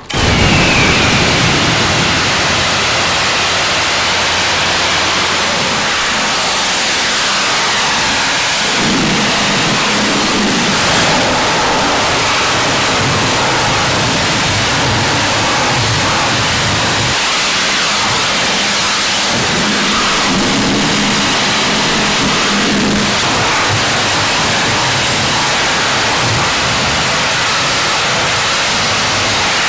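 High-pressure water jet from a 20-horsepower pressure washer rated 3,600 PSI at 8 gallons per minute, blasting a truck's tires and frame: a loud, steady hiss of spray that cuts in abruptly at the start.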